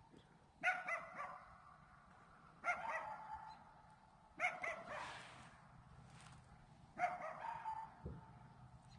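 Faint dog barking: four single barks spaced about two seconds apart.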